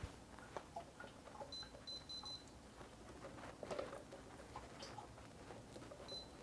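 Humidifier control panel beeping as its buttons are pressed: four short, high beeps in quick succession about one and a half seconds in, and one more near the end, amid faint clicks and taps.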